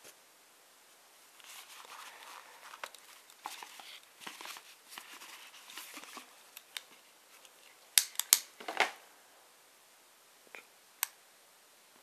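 Rustling and handling of a satin-lined gift box and packaging as a torch lighter is taken out, followed by a quick cluster of sharp clicks and knocks about eight seconds in and two more single clicks near the end.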